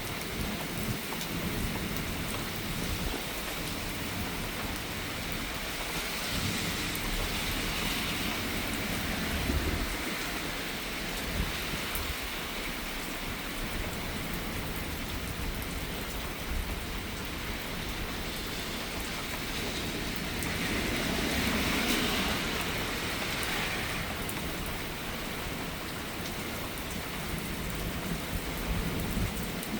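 Steady heavy rain with wind gusting across the microphone in low rumbles; the rain's hiss swells louder twice, about a quarter of the way in and again about two-thirds of the way through.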